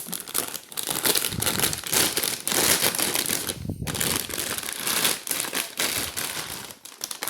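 Packaging crinkling and rustling continuously as it is handled and opened, with a short pause partway through.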